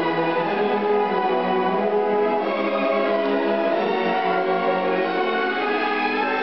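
Youth symphony orchestra playing live, violins and cellos bowing steady held notes and chords.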